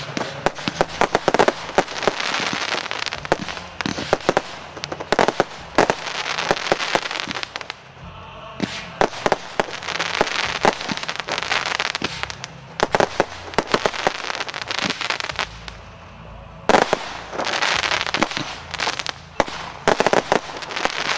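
Aerial fireworks display: repeated sharp bangs of bursting shells over dense crackling, coming in waves with short lulls about eight and sixteen seconds in. A single loud bang opens the last wave.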